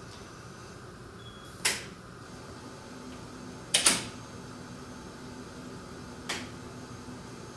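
Three sharp knocks, the middle one a quick double and the loudest, over a steady hiss.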